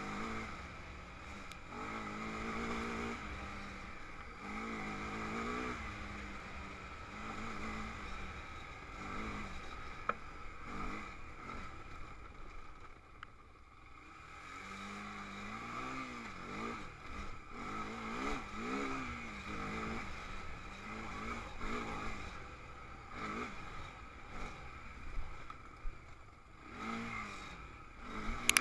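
Honda TRX300EX sport quad's single-cylinder four-stroke engine, ridden along a dirt trail, revving up and falling back again and again as the throttle is worked.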